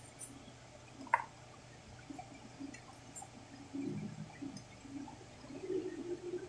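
Faint handling of small metal gas-stove valve parts: one light metallic clink about a second in, then soft fumbling sounds.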